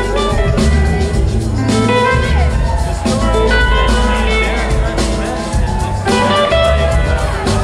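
Live blues-rock band playing, with an electric guitar's bending lead lines over bass and drums.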